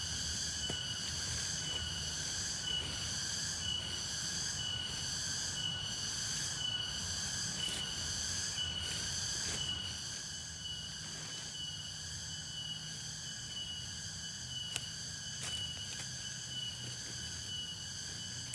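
Night insect chorus of crickets or similar insects: a steady high trill with rhythmic chirping pulses about once a second over it, the pulsing fading somewhat about halfway through. A low rumble runs underneath.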